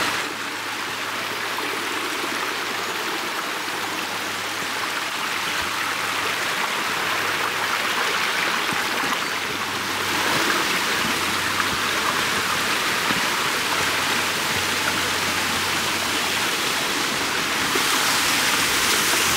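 Mountain stream running: a steady rush of water that gets a little louder about halfway through and again near the end.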